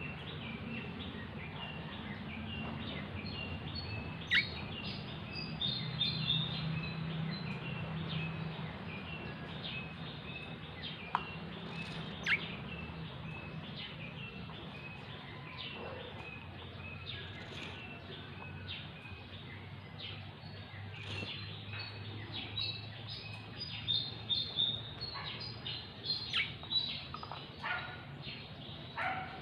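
Pet budgerigar (budgie) chirping and chattering in quick short chirps, with a few louder sharp calls that drop in pitch. The chirping grows busier near the end.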